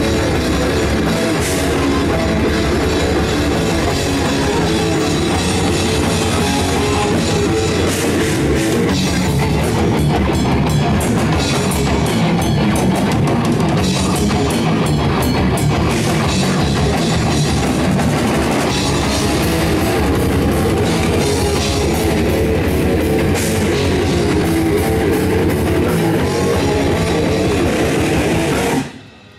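Progressive death metal band playing live at full volume: pounding drum kit and heavy distorted guitars. It stops suddenly near the end.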